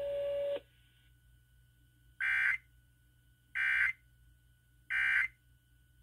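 Emergency Alert System End of Message (EOM) code played through an FM radio's speaker: three short digital data bursts about 1.4 s apart, marking the end of the required monthly test. Before them a steady tone cuts off about half a second in.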